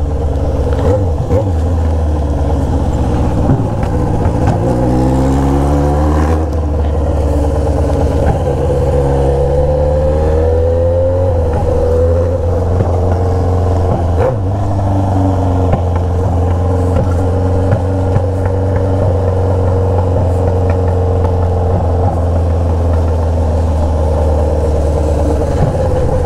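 Motorcycle engine through a straight-pipe exhaust, heard while riding: the revs climb a few seconds in, ease off around the middle, pick up briefly, then settle into steady cruising.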